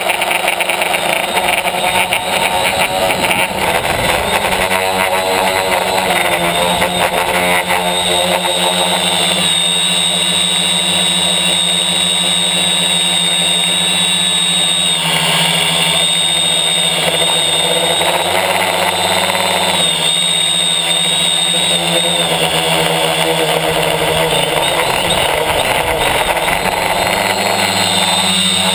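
Tricopter's three electric motors and propellers running in flight, heard from a camera on the frame: a loud, steady buzzing whine whose pitch wavers up and down as the throttle changes.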